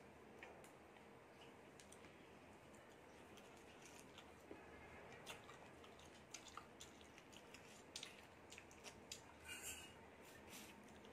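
Faint, small wet clicks and smacks of eating rice by hand: fingers working rice on a plate and mouth sounds of chewing. The clicks come more often in the second half, over a low steady hiss.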